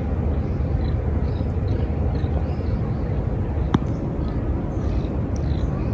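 Outdoor ambience: a steady low rumble, with faint high chirps of small birds scattered throughout and a single sharp click about halfway.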